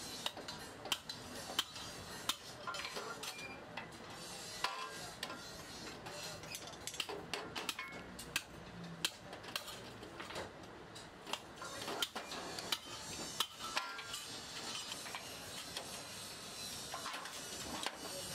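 Irregular metallic clinks and knocks, with a short ring after some of them, as metal parts and tools are handled and struck in metalworking.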